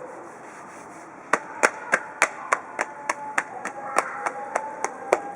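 Open hands slapping on the body in a quick, even rhythm, about three sharp slaps a second, starting a little over a second in: a slapping massage.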